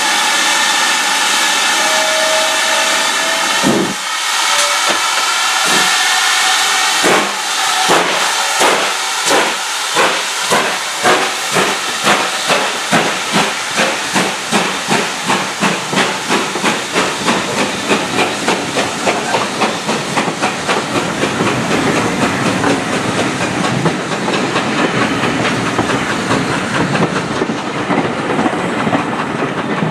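Steam locomotive pulling away with a train: a loud hiss of steam, then exhaust chuffs that start slow, about one a second, and quicken to about four a second. Near the end they blur into a steady rumble and clatter as the carriages roll past.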